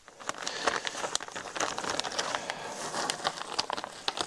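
A plastic zipper bag crinkling and rustling as it is held open, mixed with many small sharp clicks of hardened spruce pitch pieces being scooped up by hand and dropped in.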